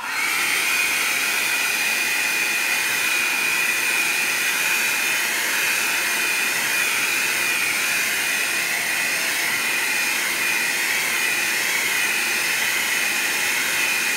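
Handheld hair dryer switched on and blowing steadily, a loud rush of air with a steady high whine from its fan motor, used to dry wet watercolour paint on paper.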